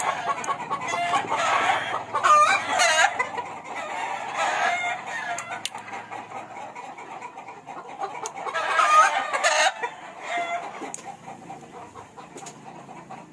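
Game-farm roosters crowing, with hens clucking in between; the loudest crows come about two and nine seconds in.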